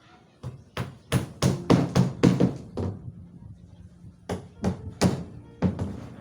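Hammer blows on wood, as in driving nails: a quick run of about nine strikes, a pause of about a second, then five more.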